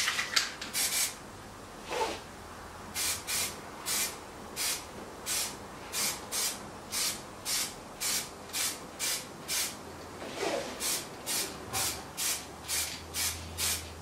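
Aerosol can of Plasti Dip sprayed in short hissing bursts, about two a second, laying a thin coat of black rubber coating.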